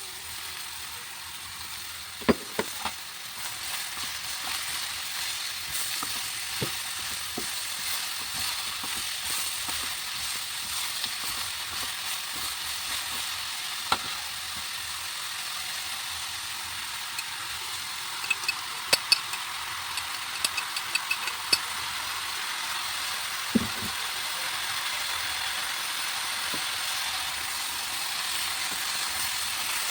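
Food sizzling as it fries in a hot pan, a steady hiss throughout. There are a few sharp knocks of a utensil against the pan and a quick run of light ticks a little past halfway.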